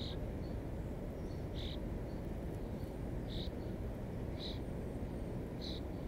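Northern cardinal giving short, sharp chip calls, five in the span, roughly one every one to two seconds, over a steady low background rumble.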